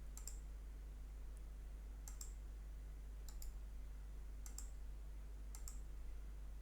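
Sparse clicks at a computer, keys or mouse buttons, in quick pairs about once a second, over a steady low electrical hum.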